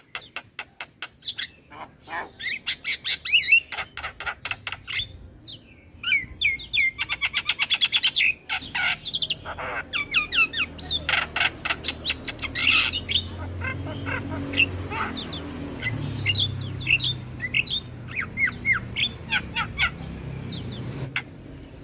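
Javan myna (jalak kebo) in full song: fast runs of clicking chatter mixed with short squawks and whistled notes that sweep up and down.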